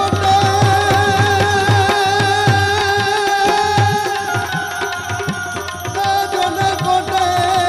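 Tabla playing a brisk rhythm, its bass drum strokes gliding in pitch, under sustained melodic notes: an instrumental passage of Gujarati devotional folk music.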